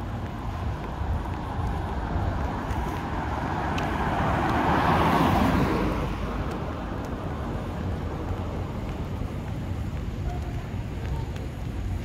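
Steady outdoor traffic rumble, with one road vehicle passing by: its noise swells over a few seconds, peaks about five seconds in and falls away quickly.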